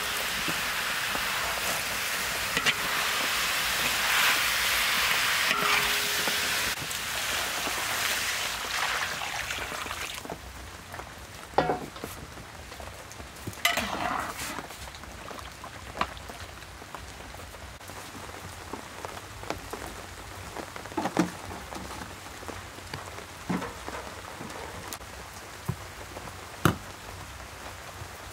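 Sliced green banana and fish sizzling in a hot wok while a metal spatula scrapes and stirs them. The sizzling stops suddenly about ten seconds in; after that, with broth in the wok, there are only scattered clinks and knocks of the metal spatula against the wok.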